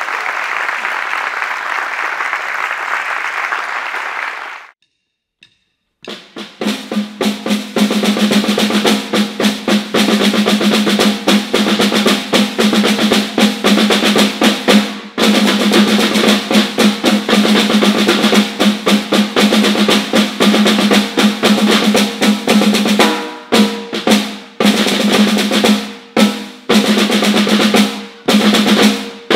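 Audience applause that cuts off suddenly about four and a half seconds in. After a moment of silence, three snare drums start playing together: a dense, rhythmic run of strokes with a ringing drum tone, broken by a few short pauses near the end.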